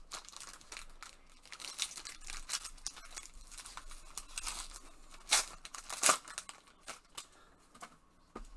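Foil wrapper of a 2020 Panini Obsidian football card pack being torn open and crinkled by hand as the cards are pulled out. It gives an irregular crackling, with the sharpest crinkles about five and six seconds in.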